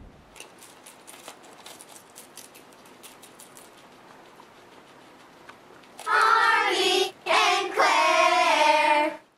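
Faint crisp clicks of guinea pigs chewing lettuce. About six seconds in, a high voice loudly sings a short phrase, breaks off for a moment, then sings on until just before the end.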